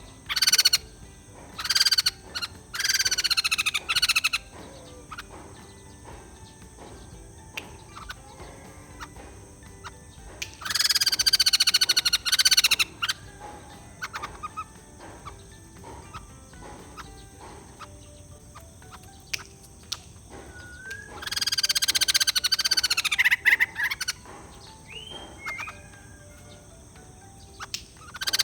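White-crested laughingthrush calling in loud, chattering bursts: three short ones in the first four seconds, a longer one of about two seconds around eleven seconds in, and another long one around twenty-two seconds. Quieter ticks and faint chirps come between the bursts.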